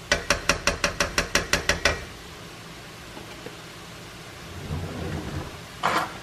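A white stirring spoon tapped quickly and evenly on the rim of a stainless steel skillet, about a dozen sharp taps at roughly six a second, knocking food off the spoon. A few softer knocks follow near the end.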